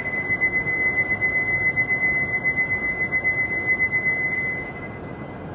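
Station platform departure bell ringing before a Shinkansen departs: one steady high ring with a fast pulse, stopping about four seconds in and dying away.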